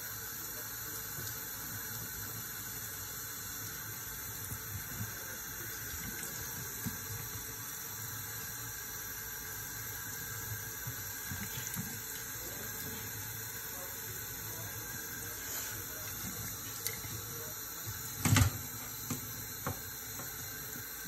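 Faucet running steadily into a utility sink, the stream falling over a hen's feathers as she is washed. One brief loud thump near the end.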